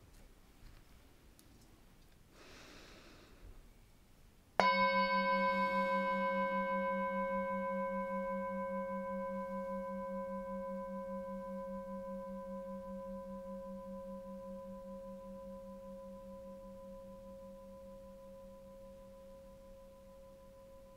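Hand-held metal singing bowl struck once about four and a half seconds in, then ringing with a low, wavering hum and several higher overtones that die away slowly.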